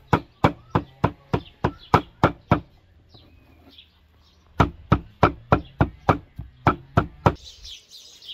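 Steel cleaver chopping minced meat on a wooden cutting board, sharp regular strikes about three a second, stopping for about two seconds in the middle and then resuming. Birds chirp near the end.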